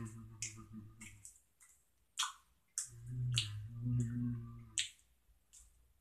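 A man chewing gummy candy with wet mouth clicks and smacks, humming a low, steady 'mmm' twice, the second hum lasting about two seconds.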